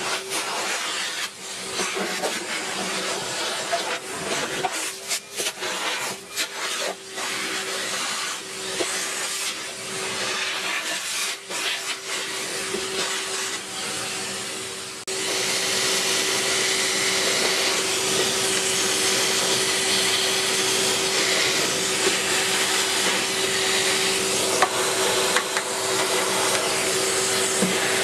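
Vacuum cleaner running with a steady motor whine, its hose nozzle sucking up dust and scraping over the cabinet floor with irregular rustles and clicks. About halfway through, the sound changes abruptly to a steadier, louder rush of suction.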